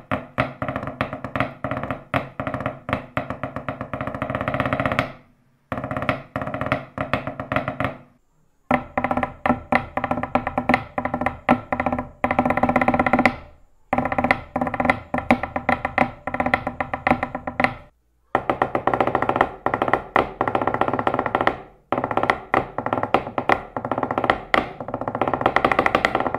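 Drumsticks with rubber-tubing-covered tips played in fast strokes straight on hard wooden furniture, a desk, a table and a side table, in six short takes split by brief breaks. Each surface rings with its own pitch under the sticks. The rubber tips let bare hard surfaces serve as a practice pad, giving the sticks bounce and softening the hits.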